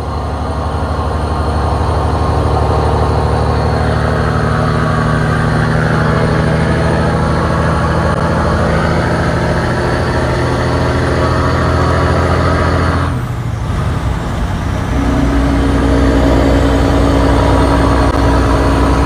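Detroit Diesel Series 60 12.7-litre inline-six diesel engine pulling a semi-truck at highway speed, heard from inside the cab, building up over the first two seconds. About thirteen seconds in the engine note breaks off briefly, as in a gear change, then comes back steady at a different pitch.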